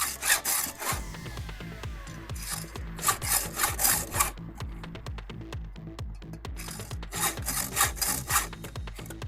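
Hand file scraping across the cutter teeth of a chainsaw chain, in several bursts of quick strokes as each tooth is sharpened. Background music with a steady beat plays underneath.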